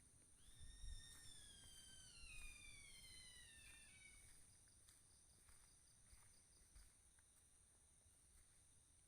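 A faint, unexplained whistle-like call with several overtones, starting about half a second in and sliding slowly and steadily down in pitch for about four seconds before fading out. It is the strange sound that listeners have taken for a kuntilanak's cry. A steady thin high-pitched tone sounds underneath throughout.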